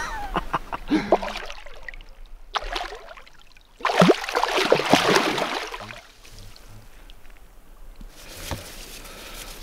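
Carp thrashing in a water-filled sling: a loud burst of splashing and sloshing about four seconds in that lasts a couple of seconds, then softer trickling water. A few knocks and clicks of handling come before it.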